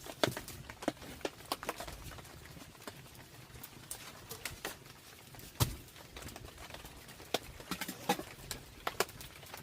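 Irregular sharp taps and crackles over a faint steady hiss, with one louder knock about five and a half seconds in.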